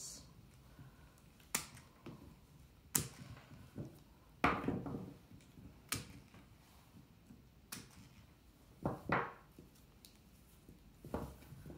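Secateurs snipping off the loose ends of willow rods on a woven willow heart: a series of sharp snips, one about every one and a half seconds. Between the cuts there is softer rustling as the willow is handled.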